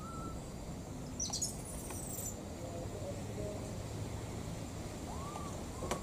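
A baby monkey giving faint, arching coo calls, twice near the end, the crying call of a young monkey looking for its mother. A brief burst of high-pitched chirping comes about a second in, over a steady low background noise.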